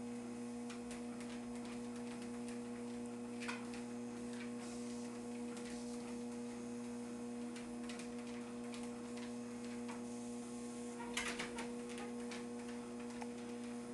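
Treadmill motor running with a steady hum. Over it come light, irregular clicks of a dog's feet on the moving belt, with a short cluster of louder ticks about eleven seconds in.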